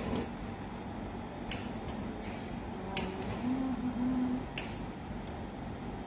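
Gas brazing torch being struck alight with a flint striker: sharp clicks in pairs roughly every second and a half, over a low steady hiss.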